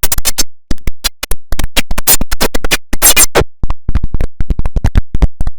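The IBM OS/2 Warp 3 shutdown sound, digitally mangled by stacked effects into a loud stutter: dozens of very short clipped fragments that cut on and off several times a second, with brief silent gaps between them.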